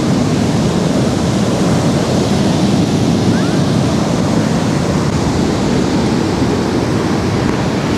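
Ocean surf washing onto a sandy beach, a steady rushing noise, with wind on the microphone.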